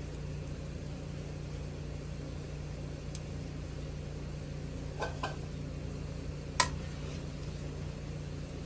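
Steady low kitchen hum from a running appliance, with a few light clicks of a utensil against a metal cooking pan. The sharpest click comes about two-thirds of the way through.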